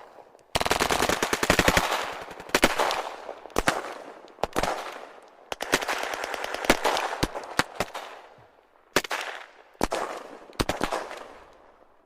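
Gunfire: a long burst of rapid automatic fire, then scattered single shots and short bursts, each with an echoing tail. It ends with three separate shots a little under a second apart.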